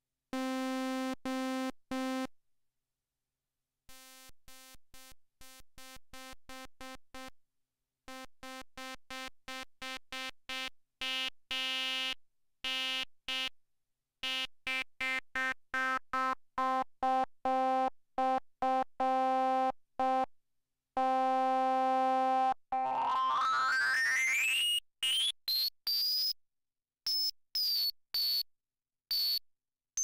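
Arturia MicroBrute analog synthesizer repeating short notes on one pitch as its patch is adjusted, with a brief pause early on. Near the end a bright tone sweeps steadily upward and the notes turn thin and high, like a whistle.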